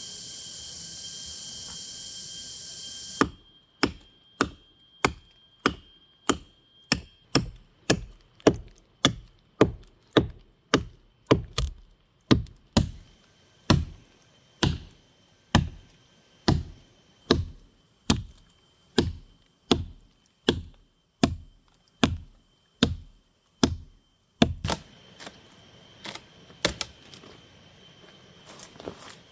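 Wood being chopped with a hand tool: sharp, evenly paced blows at about two a second for some twenty seconds, then a few scattered blows near the end. Insects buzz steadily before the chopping starts.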